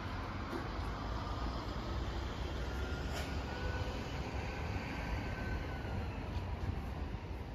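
Steady city traffic: a low rumble of passing vehicles, with a faint drawn-out whine through the middle.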